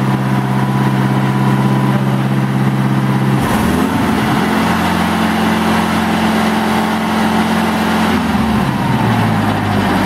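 Wisconsin four-cylinder gas engine of a 2002 Clipper C35B walk-behind concrete saw running at idle, revved up about three and a half seconds in, held at the higher speed for about five seconds, then let back down to idle near the end.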